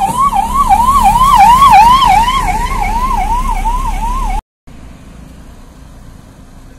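Electronic siren in a fast yelp, its pitch sweeping up and down about two and a half times a second. It cuts off abruptly about four and a half seconds in, leaving faint background noise.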